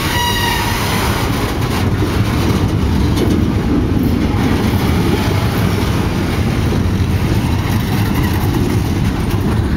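Loaded log flatcars of a freight train rolling past: a steady, loud rumble and rattle of steel wheels on the rails, with a brief high-pitched squeal right at the start.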